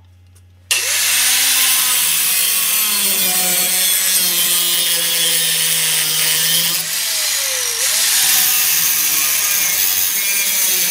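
Angle grinder cutting through a bolt clamped in a vise, the disc grinding loudly on the metal from about a second in. Its pitch sags and recovers as the disc is pressed into the cut, dipping most clearly near the middle.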